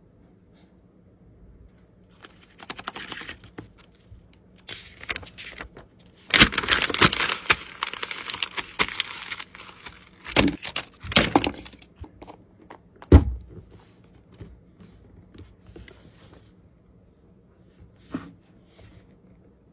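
Unboxing handling noise: packaging being rustled and torn in several crackly bursts, the longest and loudest in the middle, followed by a few dull thunks as the box or its contents are knocked or set down.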